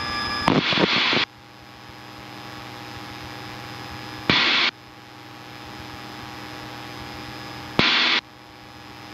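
Steady drone of a Piper Cherokee's engine heard in the cabin through the headset audio, broken by three short bursts of radio static: about half a second in, at about four seconds, and about eight seconds in. After each burst the drone drops away and slowly builds back up.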